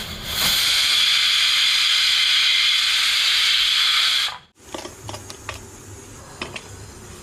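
Loud, steady sizzling hiss of food frying in a hot pan, cutting off abruptly about four seconds in, followed by faint light clicks.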